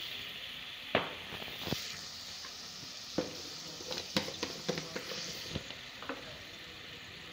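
Potato chunks sizzling steadily in hot oil in a metal pot while being stirred. A wooden spoon knocks against the pot about eight times.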